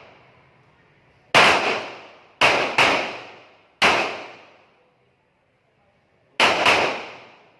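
Handgun shots, about five of them at uneven spacing (two close together near the middle), each a sharp crack that echoes away over about half a second.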